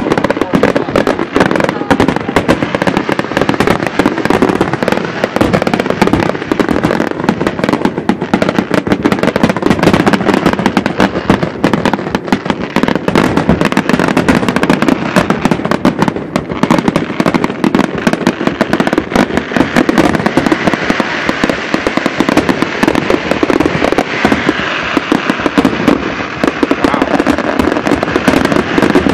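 Fireworks grand finale: a dense, unbroken barrage of shell bursts and crackling with no pauses.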